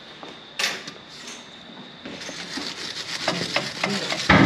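Hand brush scrubbing on metal in quick strokes, starting about two seconds in, with a sharp knock just before the end.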